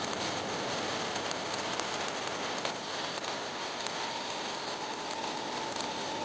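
Electric arc welding laying hardfacing weld on a rotor: a steady frying crackle with many small pops. A faint steady whine comes in about four seconds in.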